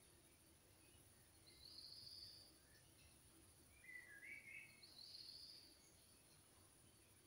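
Faint outdoor ambience with a few distant bird calls: two short high phrases and a quick cluster of chirps between them, over a steady high hiss.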